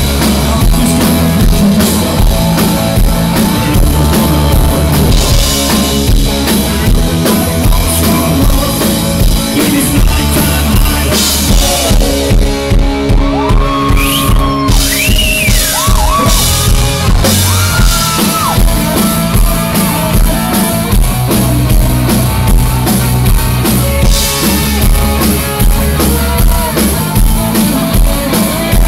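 Live rock band playing loud with a steady beat: drum kit, electric guitars and bass.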